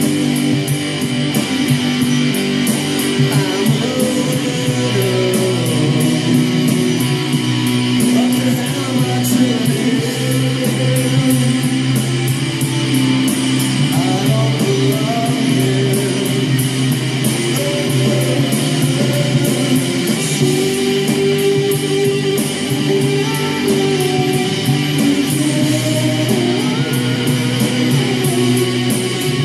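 Rock music with electric guitar and a steady beat.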